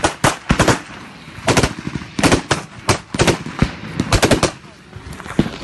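Automatic gunfire close by, in short bursts of a few rounds each, about five bursts with brief pauses between.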